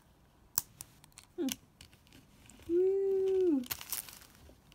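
Small plastic clicks as a toy skateboard's wheel is pressed back onto its axle, then a woman humming one held note for under a second, dipping at the end, followed by a brief rush of noise as the skateboard is set down.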